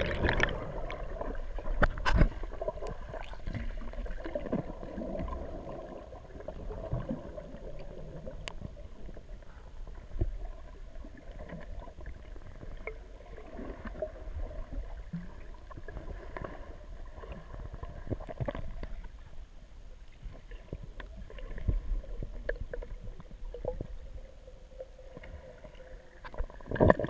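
Muffled underwater sound from a submerged camera: a steady low rumble of water with scattered small clicks and knocks as the freediver swims, and a louder burst of water noise right at the end.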